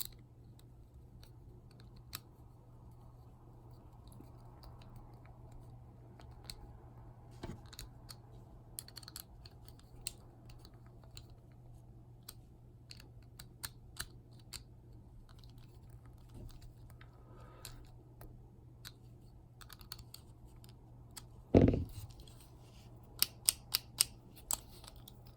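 Small plastic toy parts of a Bakugan core being handled and fitted together, with scattered light clicks, a louder knock about 21 seconds in, and a quick run of sharp clicks near the end.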